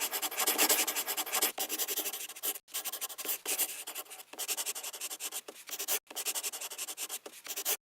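Scratching and rubbing with many small clicks, in several stretches broken by brief gaps.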